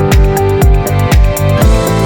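Electronic background music with a steady beat: deep kick drums sliding down in pitch about twice a second under sustained synth chords.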